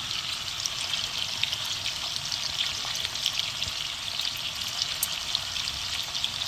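Thick-cut-bacon-wrapped ribeye strips frying in hot oil in a cast-iron skillet: a steady sizzle with frequent small pops and crackles.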